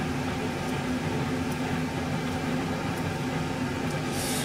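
Steady hum of a kitchen appliance's motor or fan, with a short hiss near the end.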